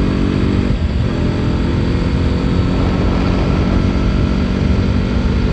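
Motorcycle engine running under way as the rider accelerates, its steady engine note breaking off about a second in, followed by a low engine rumble with rushing wind on the microphone.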